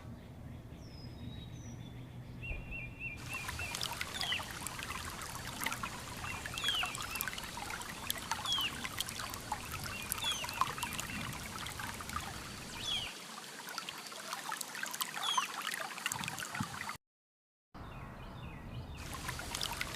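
River water trickling and flowing, with a bird repeating short falling chirps about once a second through the middle. The sound cuts out completely for a moment near the end.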